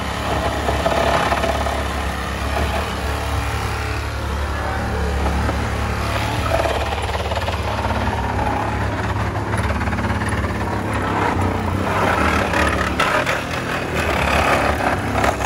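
Honda Civic's engine running steadily at idle, with a constant low hum.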